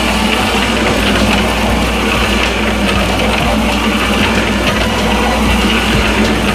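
Small drum mixer running steadily, its drum turning with dry granular duck feed tumbling and rushing inside over a constant mechanical hum.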